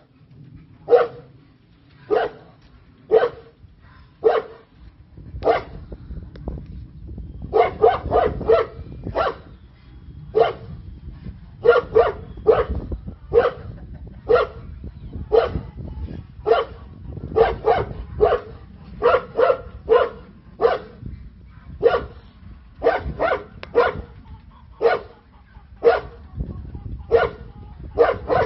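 Anatolian shepherd dog barking over and over: single barks about a second apart, broken by quick runs of two to four barks.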